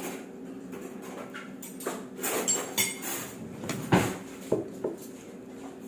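Dishes and cutlery clinking and clattering as food is handled at the table, a few scattered knocks with the loudest about four seconds in. A steady low hum runs underneath.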